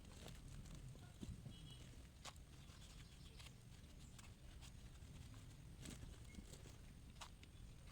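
Near silence: a low steady rumble of room tone with a few faint, scattered clicks.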